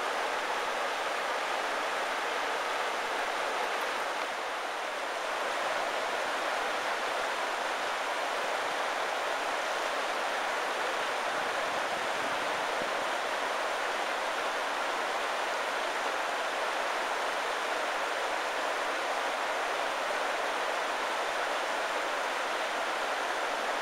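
Steady rushing of fast-flowing river water tumbling over rocks and rapids.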